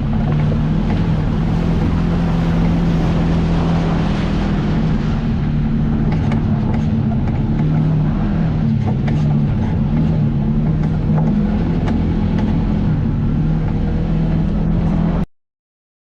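Off-road vehicle's engine running steadily while driving a trail, with scattered knocks and rattles over the engine hum. The sound cuts off abruptly near the end.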